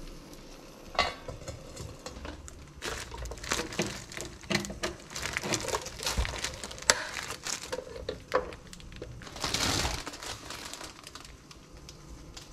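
A metal pot lid clanks once against a frying pan about a second in, followed by a run of small clicks, knocks and rustling as kitchen things are handled, with a louder rustle near the end.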